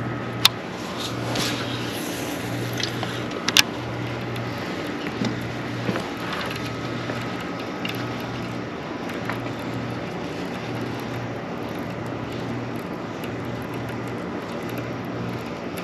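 A low machine hum that swells and fades about once a second, with a faint steady higher tone over it. Two sharp clicks come in the first few seconds.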